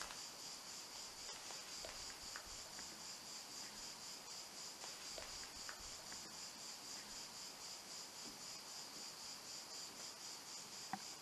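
Crickets chirping in a steady, high, evenly pulsing chorus, with a few faint clicks as a small camera on a tripod is handled.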